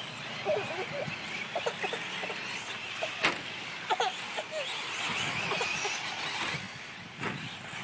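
Electric 4WD RC short-course trucks running on a dirt track, their motors whining high and rising and falling in pitch as they accelerate and brake. A single sharp click about three seconds in.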